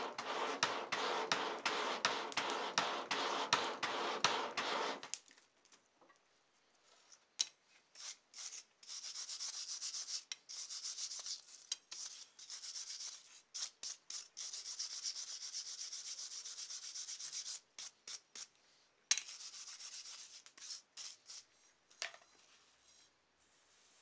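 A stone pestle grinding round in a stone mortar, in quick rhythmic strokes, for the first five seconds. Then a wire brush scrubs scale off a red-hot steel bar on the anvil to clean it for a forge weld, in long scratchy spells with short pauses and a last spell a little after the middle.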